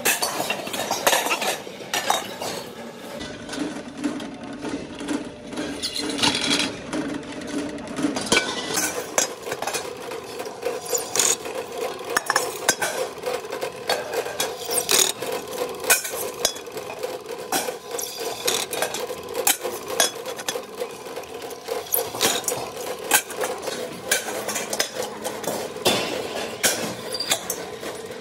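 Repeated metallic clinks and clanks of pressed steel gas-cylinder end caps being handled. About a third of the way in a steady hum sets in under the clinking: a pillar drill boring a hole through the top of a steel dome.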